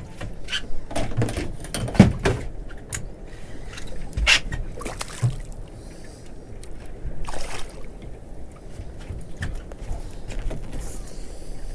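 Water lapping and splashing against a small boat's hull, with scattered knocks and clicks of rod, reel and hull as a fish is reeled up and lifted aboard; the loudest knock comes about two seconds in.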